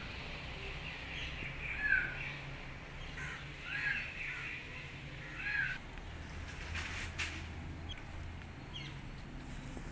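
Four short animal calls, each rising then falling in pitch, spaced about two seconds apart, followed by a couple of sharp clicks.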